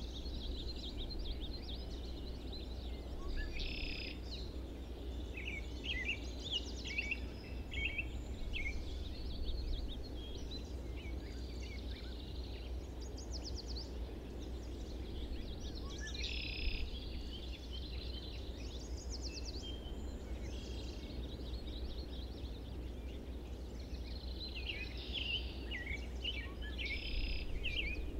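Several small songbirds singing and calling, with short chirps and quick trills that come in clusters near the start, about sixteen seconds in, and near the end, over a steady low background rumble.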